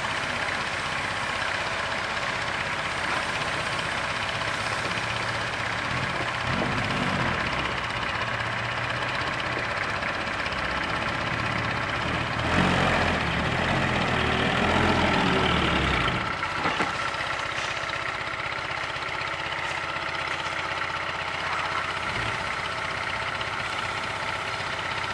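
Loaded six-wheel dump truck's diesel engine running as the truck moves slowly across a dirt lot and reverses over the soil piles. It gets louder for a few seconds about halfway through.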